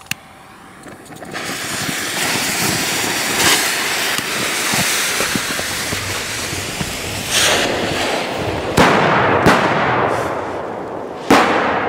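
A lit firecracker hissing and throwing out smoke for several seconds, then going off in a series of sharp bangs in the last few seconds, the loudest near the end.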